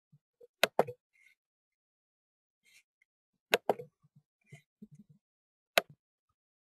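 A few sharp clicks in otherwise dead silence: two close together about a second in, two more about three and a half seconds in, and a single one near six seconds, with faint small handling noises between them.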